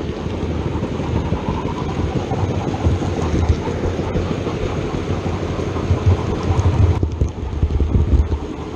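OO gauge model train running along the layout's track: a continuous rumble with rapid small clicks from the wheels and motor, the higher hiss dropping away about seven seconds in.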